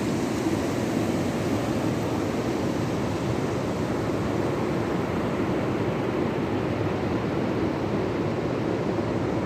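Rough sea surf at high tide: a steady, even wash of breaking waves with no single crash standing out.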